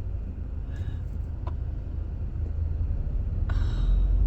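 Car engine and road rumble heard inside the cabin, getting louder near the end as the car moves off.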